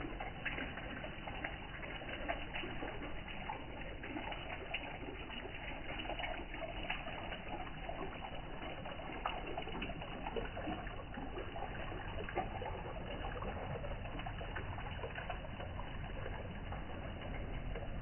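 Water running steadily down a home-built waterfall, a continuous trickling and splashing.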